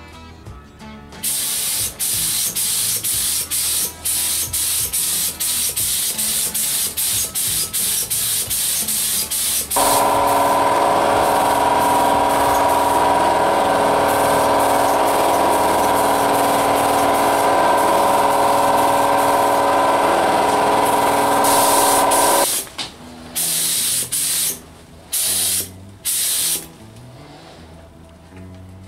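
Gravity-feed compressed-air paint spray gun (a cheap Harbor Freight gun) hissing as paint is sprayed. The first ten seconds are short passes with brief breaks, then one continuous spray of about twelve seconds with a steady hum-like tone in it, and a few short bursts near the end.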